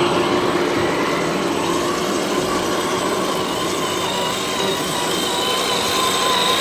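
Electric motor and gearbox of an RC crawler whining steadily over a noisy background, the pitch wavering slightly about halfway in.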